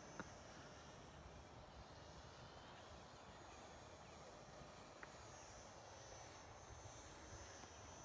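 Near silence: faint outdoor background with a faint steady high whine.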